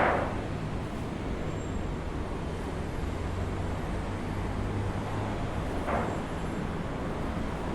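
Aluminium sheet flapping: a loud clatter fades away right at the start and a shorter, fainter one comes about six seconds in, over a steady low rumble.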